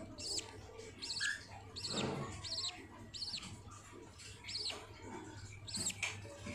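Budgerigars chirping: short, high, falling chirps, about one or two a second, over a steady low hum.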